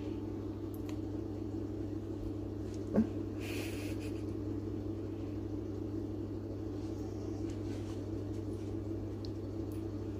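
A steady low hum, with a single click about three seconds in and a brief hiss just after it.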